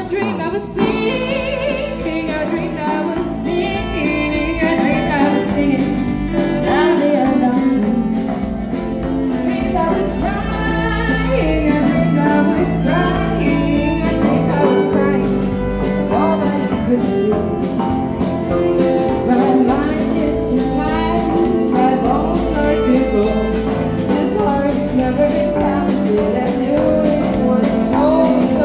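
Music: a live band playing a guitar-led, country-style song.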